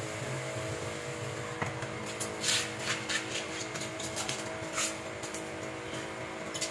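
Thin plastic bags crinkling in a few short, sharp rustles as a water-filled bag is twisted and tied shut, over a steady hum.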